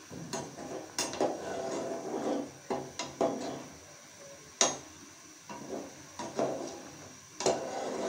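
Metal slotted spoon stirring chicken balls in a pan of boiling water, clinking against the pan a handful of times, sharpest about four and a half seconds in, with the water bubbling and sloshing between the clinks.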